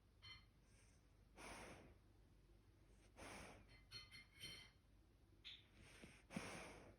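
Elderly golden retriever softly snoring in its sleep: a soft, noisy breath every two seconds or so, with a few faint high squeaks between breaths.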